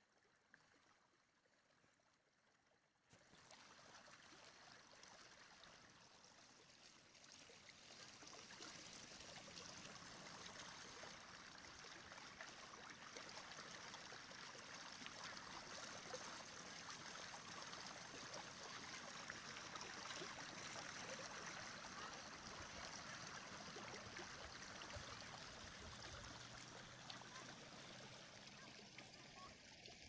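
Stream running through gaps in its ice cover, recorded on a OnePlus Nord phone. Almost nothing for about three seconds, then the water sound cuts in suddenly and slowly swells and fades again: the phone's recording level rising and falling on its own, the sound fault being shown.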